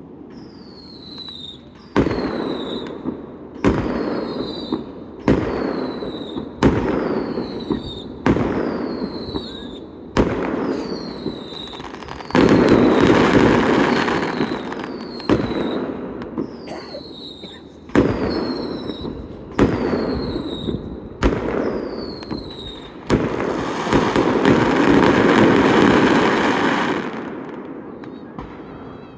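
Fireworks display: a bang about every one and a half seconds, each followed by a short high falling whistle. Two longer stretches of dense crackling and rumbling come about twelve seconds in and again about twenty-three seconds in.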